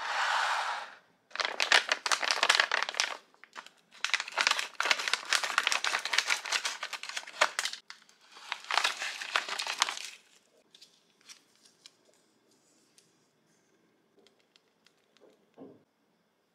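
Thin plastic snack packaging crinkling as a bag of konjac jelly pouches is handled and opened, in four long bouts over the first ten seconds. After that come only a few soft clicks and taps.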